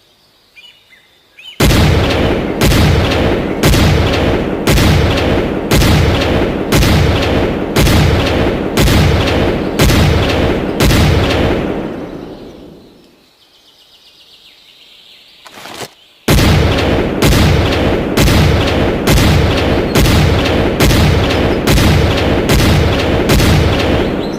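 .223 semi-automatic rifle fired in steady single shots, a little faster than one a second, each with an echoing tail. There are two strings of about a dozen shots, separated by a pause of a few seconds that holds only a faint sound and one click.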